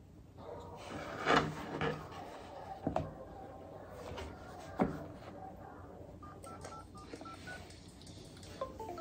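Opening sound effects of a music video: a few sharp knocks, then a quick run of short phone-keypad-style beeps at slightly different pitches late on, just before the song starts.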